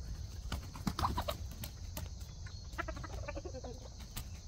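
Chickens clucking in short calls, about a second in and again as a run of falling clucks around three seconds in.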